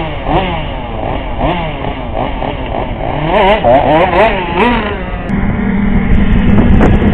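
Motocross motorcycle engine revving up and down again and again, the pitch rising and falling every half second or so. About five seconds in it settles into a steady, held drone.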